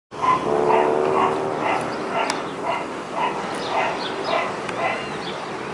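A dog barking repeatedly, about two barks a second.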